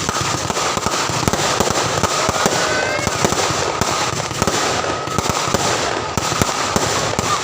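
Fireworks going off in rapid, irregular succession: many sharp bangs and crackling pops, with a brief high whistle about three seconds in.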